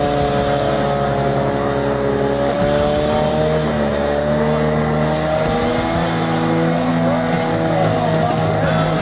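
Off-road 4x4 being winched along a flooded stream bed: its engine and winch run steadily under load, with a held, slowly wavering whine.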